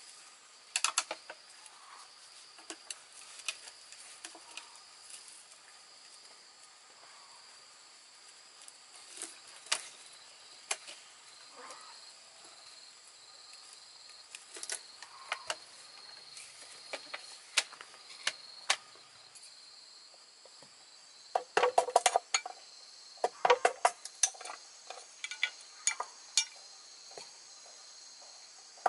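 Scattered light wooden clicks and knocks of bamboo pieces being handled and fitted together, with a burst of sharper, louder knocks a little past two-thirds of the way through. Insects chirr steadily in the background.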